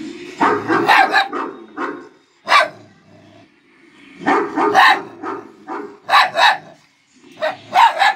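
Black puppy barking at its own reflection in a mirror: a dozen or so sharp barks in short bursts with brief pauses between them.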